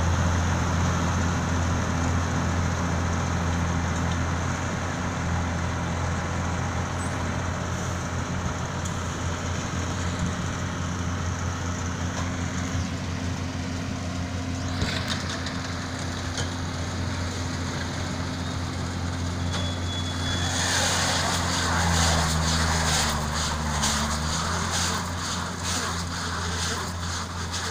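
Deutz Agrotron TTV620 tractor's six-cylinder diesel engine running steadily under load, pulling a Göweil G1-F125 round baler-wrapper that is working. The engine hum is steady. Near the end the engine note dips briefly and recovers, while a louder, uneven rushing noise with quick rattles comes in over it.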